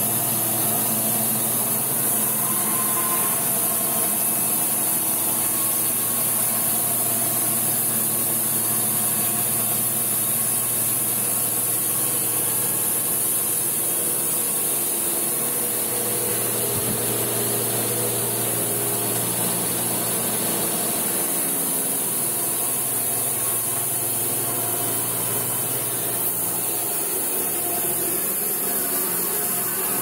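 Logosol B751 Pro electric band sawmill running, its band blade sawing steadily lengthwise through a log at an even level.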